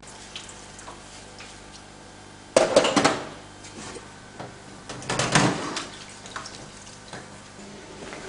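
Room noise with two loud bursts of clattering handling noise, one about two and a half seconds in and one about five seconds in, and light knocks between them.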